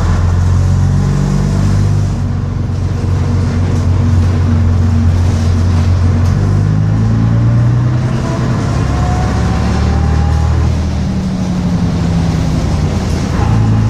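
Bristol RELL6L bus engine running under way, loud and steady. Its low note steps up and down several times as the revs change, and a faint rising whine runs through the middle stretch.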